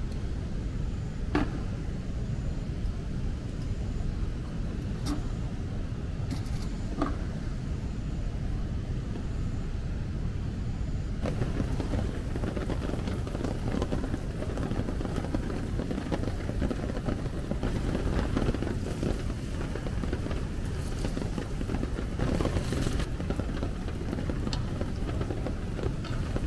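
Steady rain with a low rumble of wind, growing louder and fuller about eleven seconds in. Three faint clicks come before the change.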